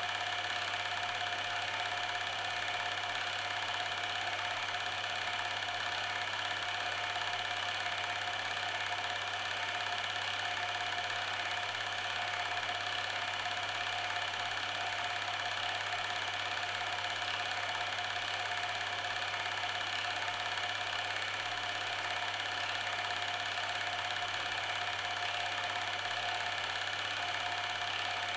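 Steady mechanical hum of a running machine, with a constant whir and several fixed tones that never change in level or pitch.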